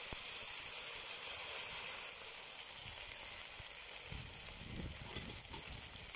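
Chopped boiled mushrooms frying in oil and butter in a cast-iron kazan: a steady sizzle that eases slightly after about two seconds. About four seconds in, a few soft low knocks come from a metal skimmer stirring them.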